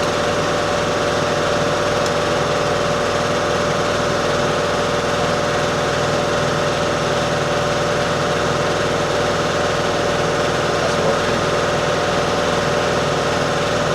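An engine running steadily at idle, its hum holding a constant pitch and level.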